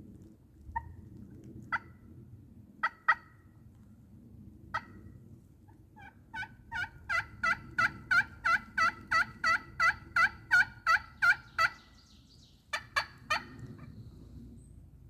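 Wild turkey calling: a few scattered sharp clucks, then a long, even run of about twenty hen-style yelps over five or six seconds, loudest toward the end, followed by three quick clucks.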